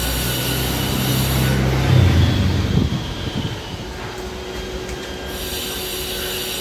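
Steady vehicle noise, a low mechanical hum that swells to a peak about two to three seconds in, then settles back to a steady drone.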